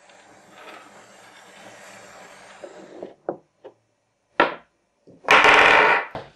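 Wooden chess pieces knocking on a wooden board: a soft rubbing at first, then several sharp clacks as pieces are set down. A louder clatter of almost a second comes near the end as a piece is knocked over.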